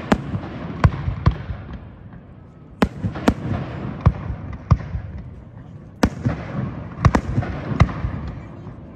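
A distant fireworks display heard from across a river: aerial shells bursting in about a dozen sharp bangs, some in quick pairs, each trailing off in a fading echo.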